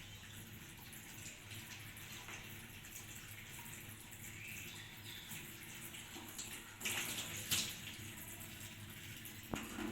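Water running from a tap into a sink as hands are washed, a steady hiss that grows briefly louder twice about seven seconds in.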